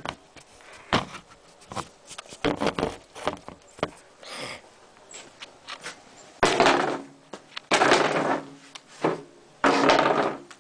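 Handling noise close to the microphone: scattered knocks and clicks, with three louder stretches of rustling in the last four seconds.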